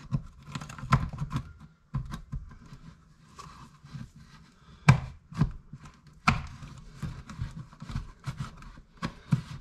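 Scattered taps and knocks from working at a plastic light-switch box in the wall, with the loudest knock about five seconds in and another just after six seconds.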